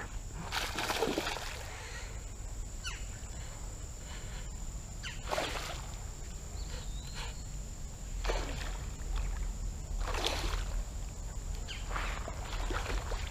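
Water splashing in a shallow river: about five short splashy swishes spread over several seconds as a jig is skittered across the surface like a topwater lure and a small smallmouth bass strikes it. A steady high-pitched tone runs underneath.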